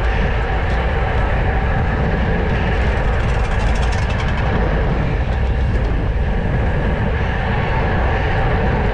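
Wind buffeting a GoPro's microphone on a racing bicycle at speed: a steady, fluttering rumble of rushing air. About three to four seconds in there is a brief patch of rapid, fine ticking.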